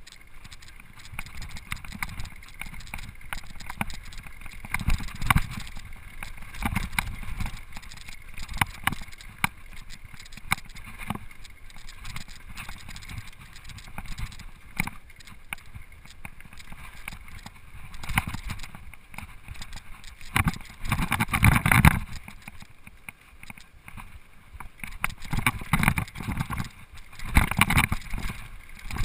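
Rocky Mountain Flatline downhill mountain bike rattling and clattering as it runs down a rocky dirt trail: chain, frame and suspension knocking over stones, with tyre noise on the gravel. Heavier jolts come about two-thirds through and again near the end.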